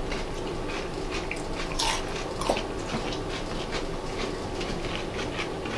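Eating sounds: chewing pickled food, with small clicks and scrapes of a fork in a bowl.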